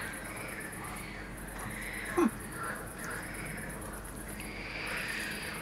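Crickets chirping in a steady pulsing trill, with a man's short falling 'mm' hum about two seconds in as he chews.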